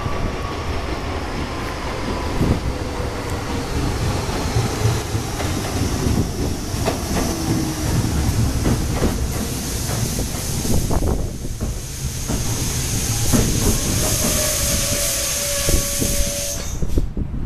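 R32 subway train pulling in on an elevated line: a heavy rumble with wheel knocks over the rail joints, and motor tones sliding down in pitch as it slows. Near the end a strong air hiss with a steady tone rises over the rumble.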